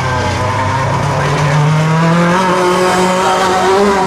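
Hotrod race cars' engines running hard as they come down the straight and past, the engine pitch climbing over the first two seconds or so and then holding.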